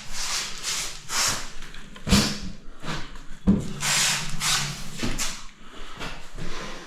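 Bathroom vanity cabinet being shifted and dragged across the floor: repeated scraping, with sharp knocks about two seconds in and again about a second and a half later.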